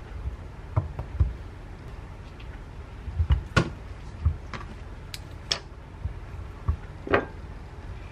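Metal spoon scraping out the seeds and flesh of a kabocha squash, with scattered short clicks and soft knocks as the spoon and the squash touch the wooden cutting board.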